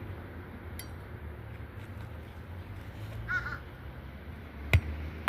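A crow caws once, a short ragged call, about three seconds in. Near the end come two sharp, loud hammer strikes on the roof, a roofer nailing asphalt shingles.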